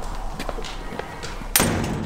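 Loaded wheelbarrow of wooden boards rolling over paving stones, with a few small knocks. A metal door bangs shut about one and a half seconds in, followed by a rumbling rattle.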